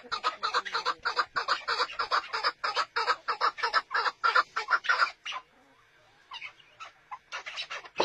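Chukar partridges calling: a fast chattering run of short repeated chuck notes, several a second, that breaks off about five seconds in, followed by a few scattered notes near the end.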